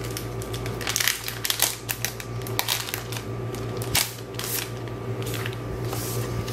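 Sticker sheets and their packaging being handled by hand: scattered rustles and small clicks, the sharpest about four seconds in.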